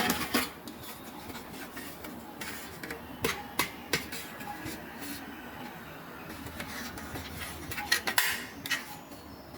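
Small hard plastic toy pieces clicking and clattering as they are handled, with scattered sharp clicks that bunch up at the start, around three to four seconds in, and again about eight seconds in.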